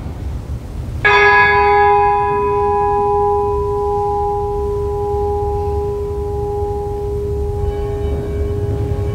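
A bell struck once about a second in, its ringing tone fading slowly for several seconds. Fainter steady tones join it near the end.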